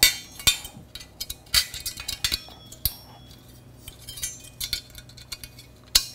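Sheet-metal rails and uprights of an AprilAire 1413 filter frame clinking and clanking as they are handled and snapped together: a string of sharp metallic clicks, some ringing briefly, loudest at the very start and near the end.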